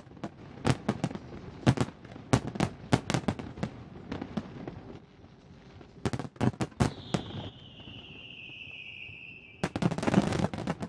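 Aerial fireworks shells bursting in a rapid series of sharp bangs. In the middle there is a long whistle that falls slowly in pitch, and near the end a dense flurry of rapid bangs.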